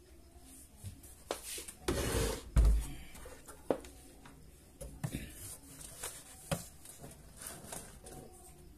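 Hands handling and shifting a power amplifier on a bench: scattered clicks and knocks, with a heavier bump and rubbing about two to three seconds in.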